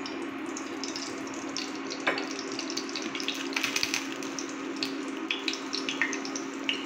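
Mustard oil just poured into a preheated nonstick frying pan, crackling and sizzling with scattered small pops over a steady hum.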